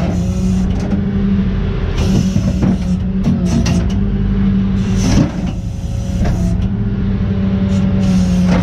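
Flatbed tow truck engine running at a steady hum, with a few sharp knocks about two, three-and-a-half and five seconds in.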